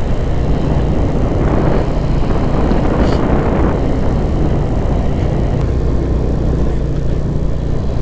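Motorcycle engine running steadily under way, with wind and road noise rushing over the microphone. The rushing noise swells briefly about two to three seconds in.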